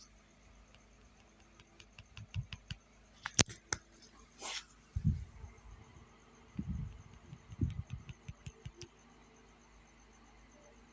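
Scattered sharp clicks and a few dull low knocks, between about two and nine seconds in, over a faint steady hum.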